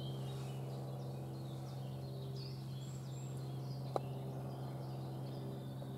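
Woodland ambience: birds chirping faintly over a steady low hum, with a single sharp click about four seconds in.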